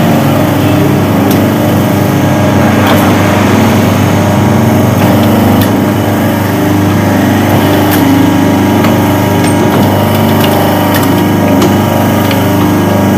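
Workshop-built plastic injection moulding machine running, a loud, steady motor hum with a few sharp ticks scattered through.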